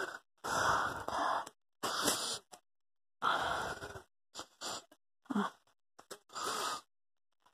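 A person's breathy, wheezing vocal sounds close to the microphone, in short bursts with silent gaps between them.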